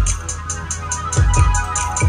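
Bass-heavy electronic music played loud through a Pioneer TS-W312D4 12-inch dual-voice-coil subwoofer in a small ported box, with deep bass hits that drop in pitch over a steady beat and quick high ticks.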